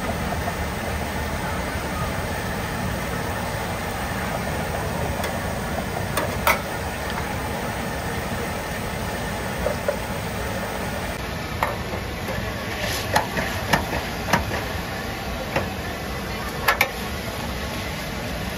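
Busy food-stall background noise, steady throughout, with scattered sharp clinks and knocks. One comes a few seconds in, and a quick cluster follows in the second half.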